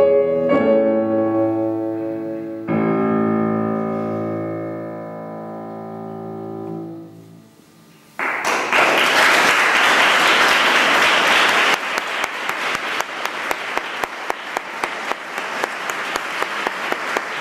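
Steinway grand piano playing its last chords; the final chord is held and left to ring out, fading almost to silence. Audience applause then breaks out suddenly about eight seconds in, and a few seconds later it settles into clapping with a regular beat.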